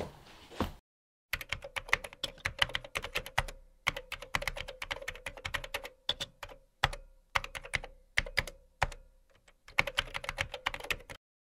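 Typing on a backlit computer keyboard: quick runs of key clicks with short pauses between them, stopping shortly before the end.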